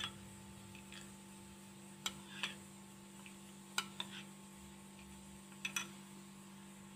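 Spoon stirring and scooping a thick homemade face-mask paste in a bowl, giving a few faint, light clinks and scrapes against the bowl, over a steady low hum.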